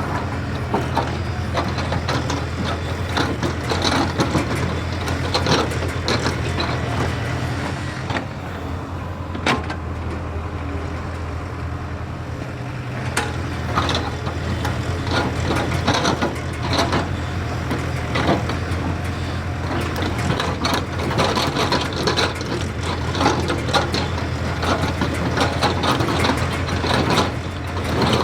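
JCB excavator's diesel engine running steadily, with frequent irregular knocks and metallic clatter from the working machine; the clatter eases briefly a little before the middle.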